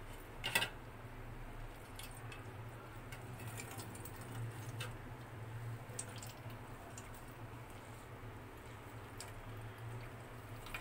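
Whey water dripping from a cotton cloth bundle of chenna (fresh paneer curds) being squeezed by hand over a perforated steel strainer, in scattered faint drips. A sharp knock comes about half a second in.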